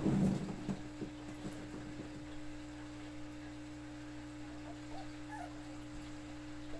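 Dog whimpering faintly a few times near the end, over a steady low hum. A brief rustling noise at the start is the loudest part.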